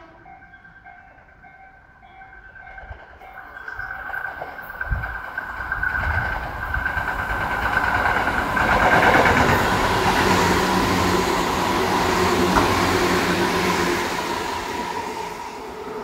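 Tobu 8000-series electric train, set 8111F, running through the station without stopping. The rumble and wheel-on-rail noise build from about three seconds in, are loudest in the middle as it passes close by, and fade as it runs away.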